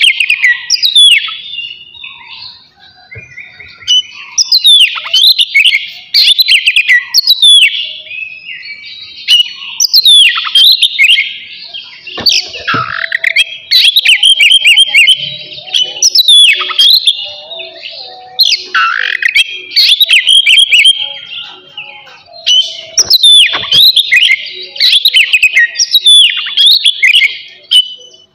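Oriental magpie-robin (kacer) singing loudly: a varied song of clear whistles, rapid warbled phrases and steep down-sweeping notes, in bursts separated by short pauses.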